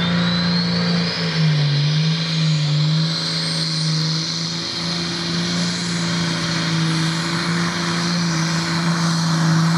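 Modified-class pulling tractor's engine running hard under load during a full pull: a steady deep drone that wavers briefly early on, with a high whine that rises in pitch over the first four seconds.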